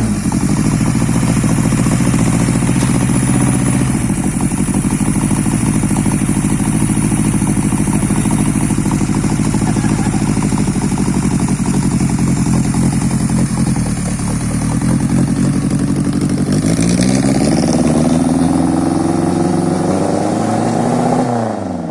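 A drag-race engine fitted to a scrap car runs loud and steady, rises in revs about three-quarters of the way through, then winds down, dropping in pitch and fading away at the end.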